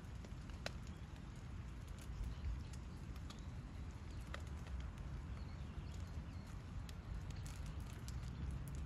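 Rain falling, with scattered single drips tapping a second or two apart over a low, steady background rumble.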